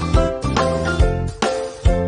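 Background music with a steady beat, a little over two beats a second, and pitched melodic notes.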